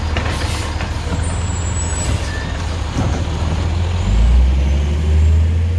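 Heil Python automated side-loader garbage truck: the diesel engine runs steadily while the hydraulic arm dumps a cart, with a few knocks and clatters. About four seconds in, the engine rises in pitch and loudness as the truck pulls away.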